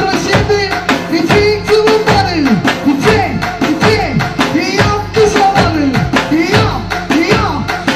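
Live Turkish dance music through a PA: a singer on a microphone over an electronic keyboard melody, with a davul bass drum beaten in a steady rhythm.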